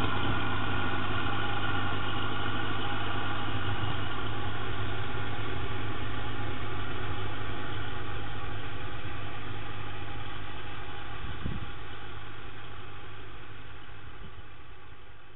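Ferguson TEA 20 tractor's four-cylinder petrol engine running at a steady speed, heard through a security camera's microphone. It fades out over the second half as the tractor moves away.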